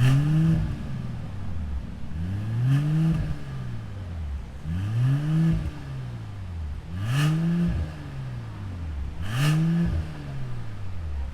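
Mercedes-AMG CLS 53's turbocharged 3.0-litre straight-six being revved through a T1 aftermarket valved exhaust. It blips up and falls back about five times, roughly two seconds apart.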